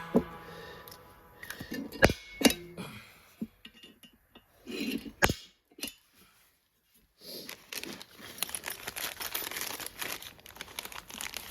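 Close handling noise: crinkling and rustling, as of packaging being handled, with a few sharp clicks and knocks.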